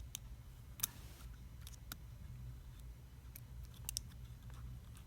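Faint, scattered clicks and ticks of small tools and plastic parts being handled as a smartphone is disassembled to free its motherboard, over a steady low hum.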